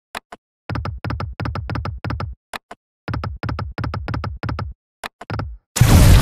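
Online slot game 5 Burning Heart's sound effects: two spins, each a quick run of pitched reel tones, about five a second, as the reels spin and stop. Near the end comes a loud burst as a flaming wild symbol fills a reel.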